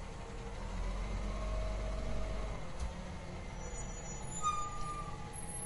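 Recycling truck engine running with a low rumble that swells for a couple of seconds near the start, with a faint whine drifting in pitch. A brief high squeal comes about four and a half seconds in.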